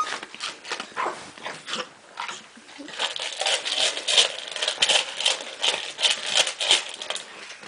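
A young golden retriever wolfing dry kibble from a metal bowl: quick crunching and chomping, with kibble clattering in the bowl. It gets faster and louder about three seconds in.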